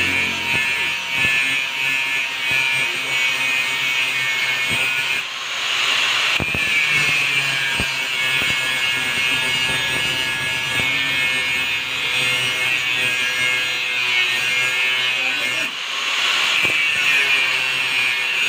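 Handheld angle grinder cutting into a steel motorcycle brake disc, a continuous high grinding whine from the disc biting the metal. The sound shifts briefly about five seconds in and again near sixteen seconds, as the cut's load changes.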